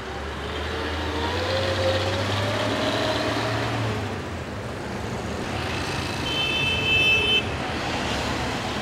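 Street traffic: a motor vehicle's engine rumbles past with its pitch rising over the first few seconds, and a vehicle horn sounds one steady high note for about a second near the end.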